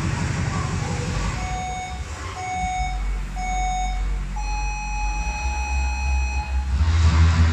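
Countdown signal: three short electronic beeps about a second apart, then one long, slightly higher beep, over the steady whir of a rowing machine's flywheel. A deep bass music beat comes in near the end.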